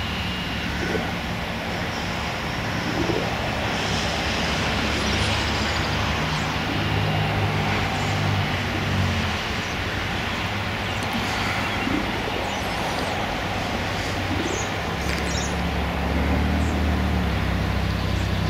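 A steady low engine drone with a broad rushing noise, such as distant aircraft or traffic, and faint bird chirps now and then.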